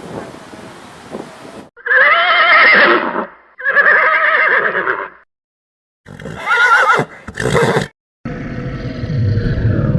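Horse whinnying: two long whinnies with a wavering, quavering pitch, then after a short silence a shorter whinny broken in two. The whinnies are separate clips joined by abrupt cuts, with a low noisy rumble before them and another low rumbling sound starting near the end.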